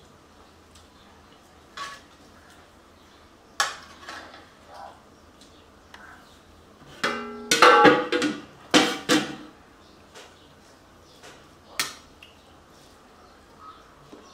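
Stainless steel pot lids and a serving spoon clinking against steel pots and plates: a few separate clinks, then a burst of louder clattering with a brief metallic ring about seven to nine seconds in as a steel lid is moved and set down.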